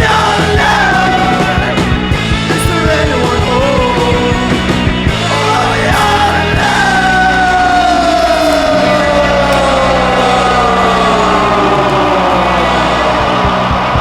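Rock music with vocals over a steady bass, with one long note sliding down in pitch through the second half.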